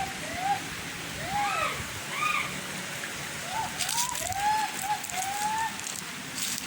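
A series of short, whistle-like calls from an unidentified source, each rising then falling in pitch, some in quick pairs, over a steady hiss. A brief rustle of clicks comes about four seconds in.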